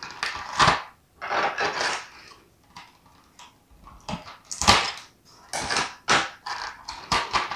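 Thin clear plastic blister tray crinkling and crackling as it is flexed and handled, with sharper clicks as the small plastic trays and pieces pop out of their compartments.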